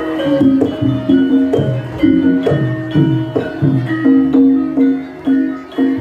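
Javanese gamelan music: struck bronze instruments playing a steady, rhythmic melody of ringing, decaying notes.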